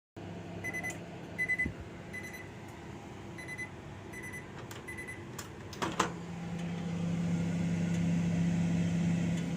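Microwave oven's end-of-cycle beeps: about six short, even, high beeps, followed by a few clicks and a louder clunk about six seconds in. A low steady hum then swells slightly towards the end.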